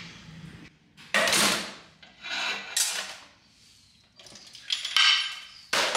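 Scraping and rubbing of metal parts in about four short bursts, from handling the torn-down LS2 V8 engine block.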